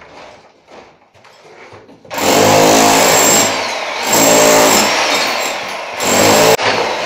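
Electric rotary hammer with a chisel bit chipping ceramic wall tiles and plaster off a brick wall. A few faint knocks come first, then the hammer starts about two seconds in and runs loudly, easing twice and stopping for a split second near the end.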